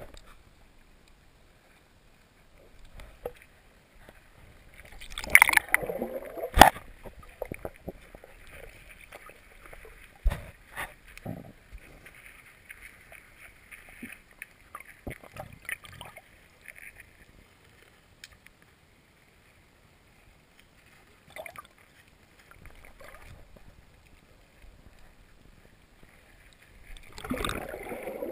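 Muffled underwater water noise from a camera held below the surface, coming in irregular surges that are loudest about five to seven seconds in and again near the end, with a few sharp knocks.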